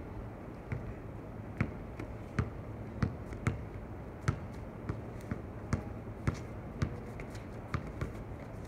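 Basketball dribbled on an outdoor hard court: irregular bounces about once or twice a second over a steady low rumble.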